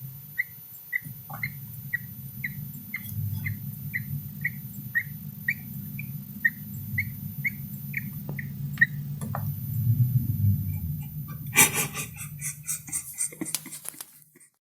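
Roborovski dwarf hamster snoring in its sleep: a string of short, high squeaks, about two a second, that runs for roughly nine seconds and then stops, over a low steady hum. A brief rustling follows near the end.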